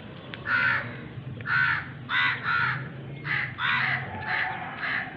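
A crow cawing repeatedly: about eight short, harsh caws in quick, irregular succession over a faint low hum.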